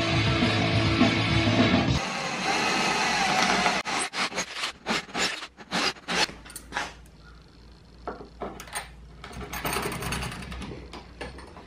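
Rock music ends about two seconds in. Then comes a run of short bursts from a power drill boring through the plywood transom, followed by fainter small clicks of the U-bolt's nuts and washers being threaded on.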